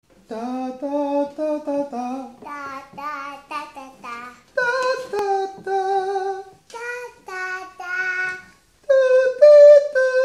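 A young girl and a man singing a tune unaccompanied, in short separate notes. The phrases are lower for the first four seconds or so and higher after that.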